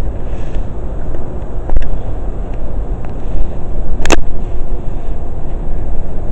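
Steady low rumbling outdoor noise, with a sharp click about four seconds in.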